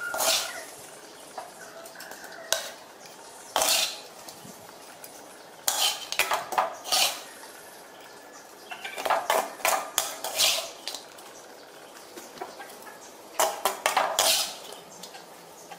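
Metal spatula scraping and clinking against a steel wok in several short bursts as the fried shrimp are scooped out onto a plate.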